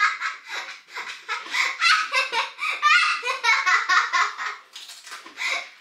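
A girl laughing in a long, high-pitched fit of giggles, several quick laughs a second with short catches of breath between.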